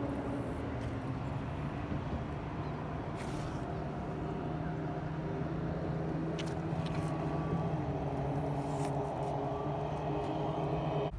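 A steady, low engine hum with a few held tones, with a few faint rustles and taps over it.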